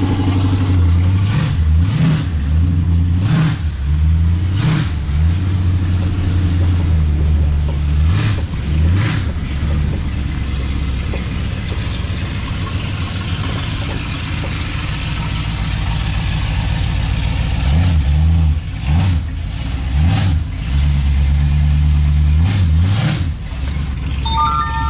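A large vehicle engine running and revving up and down in short pulses every second or two, heard from inside a vehicle's cabin, with a few sharp knocks and rattles.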